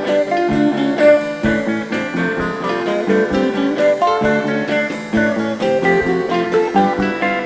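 Background music: guitar playing, plucked notes in a steady rhythm.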